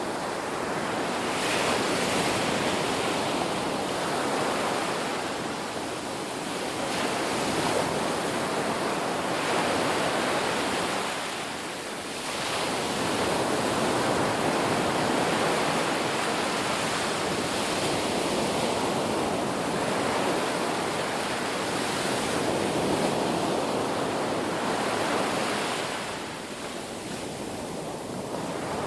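Sea waves breaking in a continuous rushing surf that swells and ebbs, with brief lulls twice.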